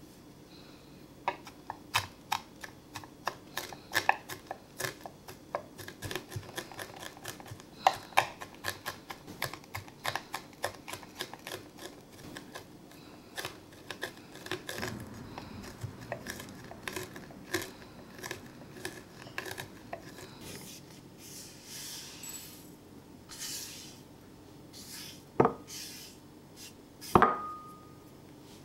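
Chef's knife chopping rosemary and thyme on a wooden cutting board: fast, uneven taps of the blade striking the board, then softer scraping. Two louder knocks come near the end, the second with a brief glassy ring, as the herbs go into a small glass bowl.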